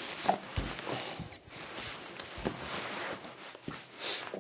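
Rustling and handling noise close to a smartphone's microphone, with a few soft thumps spread through it.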